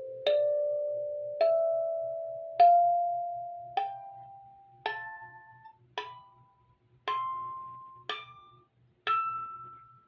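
Espougle 17-key kalimba, its tines held in a solid metal bracket instead of a Z-bar, played one tine at a time in a slow rising scale. Nine plucked notes come about a second apart; the lower ones ring on until the next, and the higher ones die away sooner.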